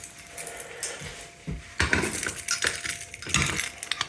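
Keys jangling and sharp metallic clicks and rattles as a fire alarm pull station is reset by hand.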